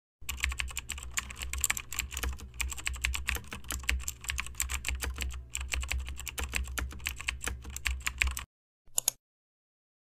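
Fast, irregular computer-keyboard typing clicks over a low hum, a typing sound effect for text being typed out on screen. The typing stops abruptly about eight and a half seconds in, and a last couple of clicks follow near nine seconds.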